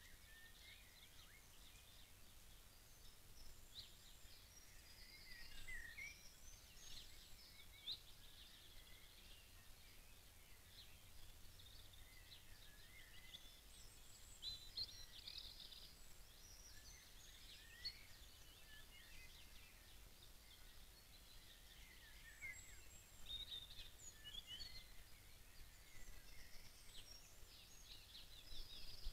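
Faint songbirds singing from several directions: many short chirps, trills and quick whistled glides, coming and going throughout.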